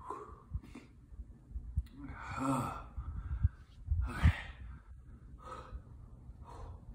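A man breathing hard through his mouth in a series of about six sighs and huffs, the longest about two seconds in. The breathing is a reaction to the burn of a super-hot chili-pepper chip.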